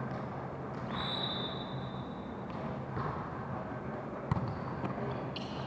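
Reverberant gym ambience during a volleyball match, with a high, steady tone lasting about a second and a half starting about a second in, and one sharp smack of a ball about four seconds in.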